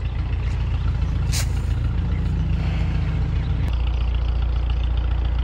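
An engine running steadily, a low drone that shifts slightly in pitch near the end, with one short click about a second and a half in.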